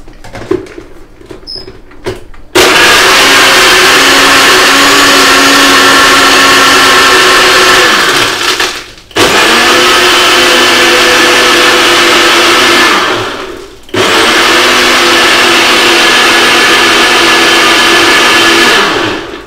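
NutriBullet blender crushing ice with protein powder, run in three loud bursts of about four to six seconds each. Each burst starts abruptly and ends with the motor's whine falling in pitch as it spins down.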